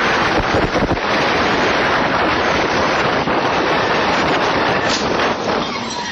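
Loud, steady rushing of wind buffeting the microphone, starting to ease off near the end.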